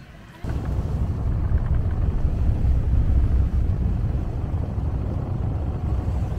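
Loud low rumble that starts abruptly about half a second in.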